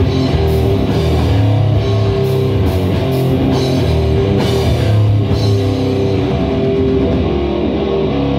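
A live rock band playing heavy rock: two electric guitars over a Mapex drum kit, with sustained guitar chords and steady drumming and cymbal crashes.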